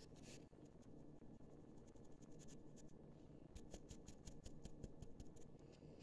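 Flour being sifted through a fine wire-mesh kitchen sieve, the sieve shaken and tapped over the bowl, giving faint scratchy rustling and, from about halfway, a quick run of light ticks.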